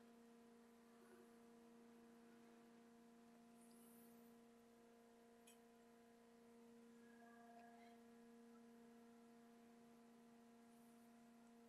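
Faint, steady hum of the CNC router's stepper motors, several level tones held throughout, as the machine feeds the end mill slowly sideways during a rough probing move. It cuts off at the very end, as the probe touches and the rough probe stops.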